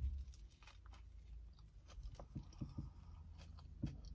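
A person biting into a toasted sub and chewing it: a soft bite at the start, then faint, scattered mouth clicks and a few brief chewing sounds over a steady low hum.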